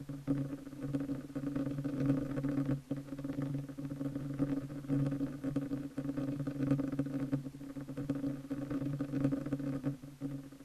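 Low, insect-like buzzing sound effect: a steady hum whose level wavers and flutters quickly.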